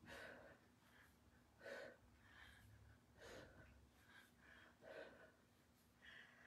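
Faint, sharp breaths, one with each kettlebell swing, coming about every second and a half.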